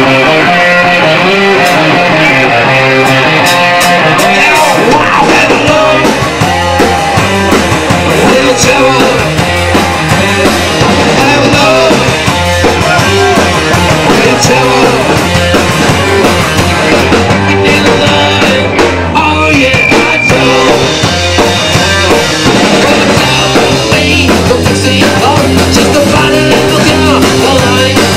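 A rock band playing live, drum kit and electric guitar, loud and continuous. The music starts right at the beginning and does not let up.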